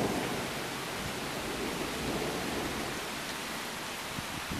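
Steady hiss of rain with wind noise on the microphone; the tail of a thunder rumble dies away in the first second.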